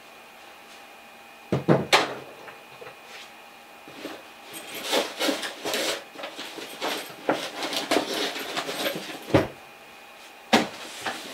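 Hands rummaging in a fabric tool bag on a wooden bench: a couple of knocks about two seconds in, then several seconds of rustling and scraping of fabric and cardboard, with more knocks near the end.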